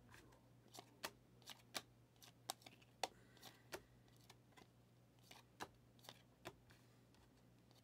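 Faint, irregular clicks and slides of glossy chromium trading cards as they are flipped through one at a time in a hand-held stack.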